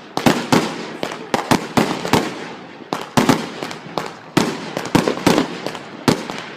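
Fireworks going off in quick irregular succession: many sharp bangs, several a second, with crackling between them.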